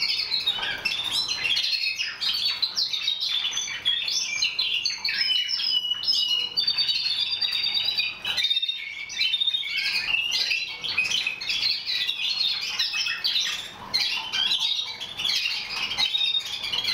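Timbrado Español canaries singing together: a continuous run of rapid, high, overlapping song phrases.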